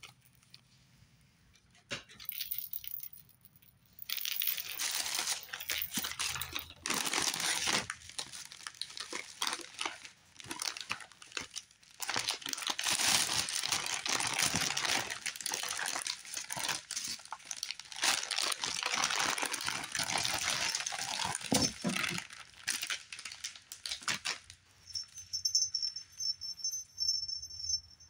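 Glossy plastic gift bag crinkling and rustling as it is handled and opened, in long irregular stretches. Near the end a small jingle bell rings faintly.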